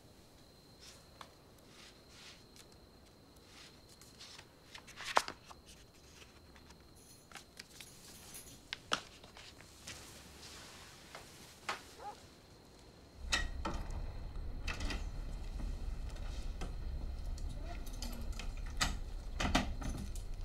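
Scattered soft rustles and light knocks of a person shifting on a sofa and bedding, with one sharp knock about five seconds in. About thirteen seconds in, a steady low hum comes in under the rustling.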